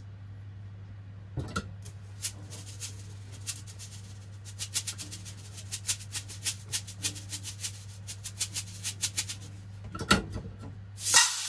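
Azuki beans rattling in a mesh kitchen strainer as they are handled and shaken, a rapid, irregular patter of small clicks, ending in a short louder rush near the end. A steady low hum runs underneath.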